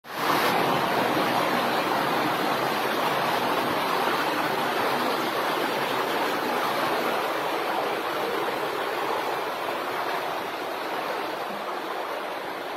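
Steady rush of heavy water, an even noise without breaks that cuts in sharply at the start.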